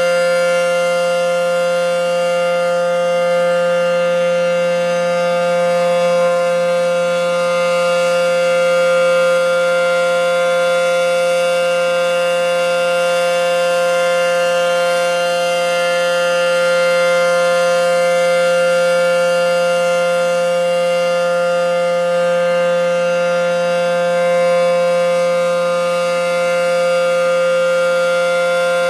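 ACA P-10 rotating outdoor warning siren, heard from directly beneath, sounding a loud steady alert tone at an unchanging pitch. The level swells gently now and then. This is the steady alert signal of a full siren-system test.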